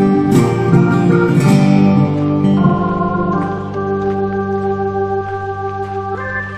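Background music: long held chords, busier at first, then thinning and slowly fading in the second half.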